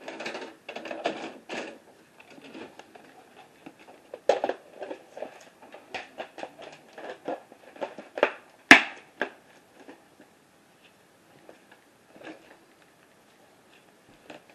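VHS videocassette recorder taking in a tape and threading it for play: a run of mechanical clicks and clunks, the loudest a sharp clunk just under nine seconds in as play engages, followed by a few faint clicks.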